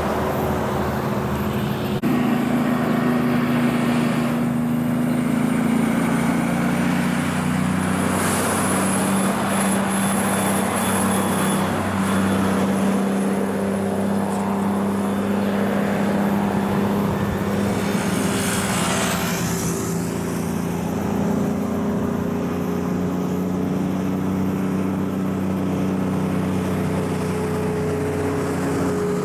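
Heavy diesel truck-and-trailer units climbing a steep grade, their engines giving a loud, steady drone whose pitch shifts a few times.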